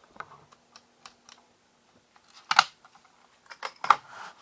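Irregular sharp clicks and clatters of small hard objects being handled and set down, with one loud click a little past the middle and a quick run of them near the end.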